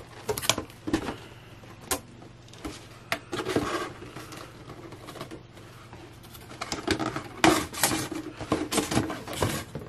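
Cardboard toy packaging being handled: rustling, tapping and scraping of the box and its punch-out door pieces, with scattered sharp clicks. The handling gets louder and busier about two-thirds of the way in.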